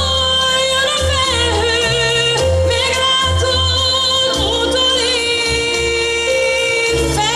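Female pop singer singing live through a handheld microphone with instrumental accompaniment, holding several long notes over a steady bass line.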